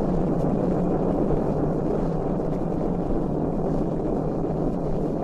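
A steady, low rushing rumble with no clear pitch, a space sound effect played back from a 1968 cardboard flexi record.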